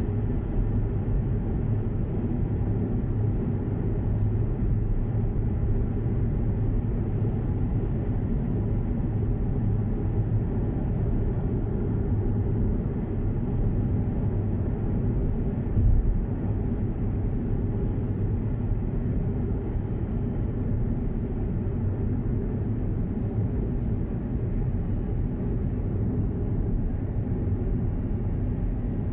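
Steady low rumble of a car at highway speed heard from inside the cabin, mostly tyre and engine noise, with one brief low bump a little over halfway through.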